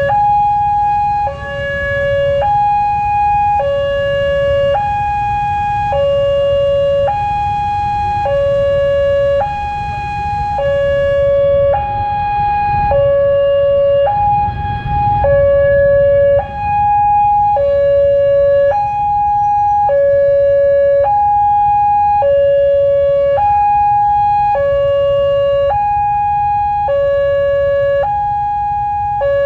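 Railway level crossing warning alarm sounding, a two-tone signal alternating between a higher and a lower tone about once a second, warning that a train is approaching. Low road-traffic rumble underneath.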